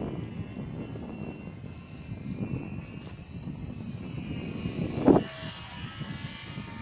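Gusty wind buffeting the microphone, with the faint high whine of a Sport Cub S2 radio-controlled plane's electric motor and propeller in flight. A strong gust hits the microphone with a loud blast about five seconds in.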